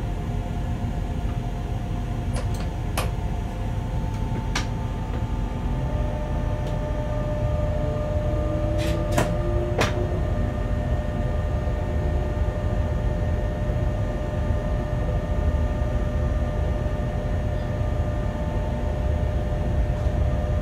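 Inside the cab of a Bombardier TRAXX BR 186 electric locomotive running light: a steady low rumble from the running gear under a steady electric whine of several tones, with a few sharp clicks between about two and ten seconds in.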